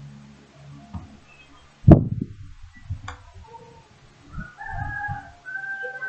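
A sharp knock about two seconds in, the loudest sound, with a smaller click a second later. Drawn-out animal calls follow in the background near the end.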